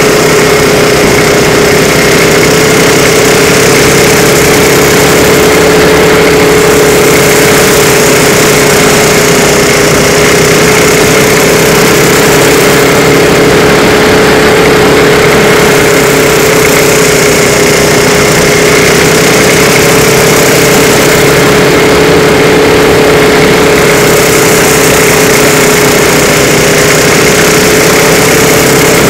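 Small racing car's engine running continuously at a steady high speed, heard from onboard over a constant rush of noise. Its pitch rises and falls only slightly as the car laps.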